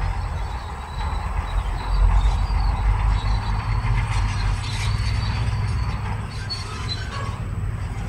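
Shantui DH17C2 crawler bulldozer's diesel engine running with a heavy low rumble, with high metallic squeals from its steel tracks.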